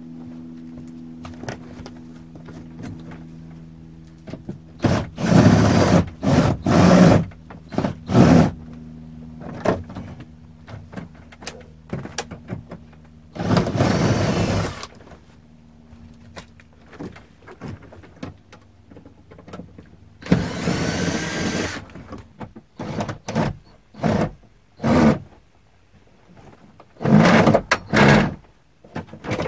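Power drill with a quarter-inch socket adapter and wobble extension spinning out the bolts that hold a fiberglass overhead bin to the bus's ribs. It runs in about five bursts of a second or two each, with knocks and clanks in between.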